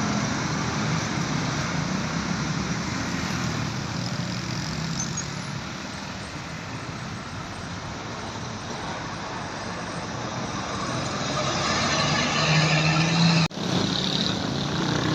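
Roadside traffic: heavy vehicles rolling past with tyre and engine noise. It eases for a few seconds, then builds as a large vehicle comes close near the end, and the sound cuts out for an instant just before the end.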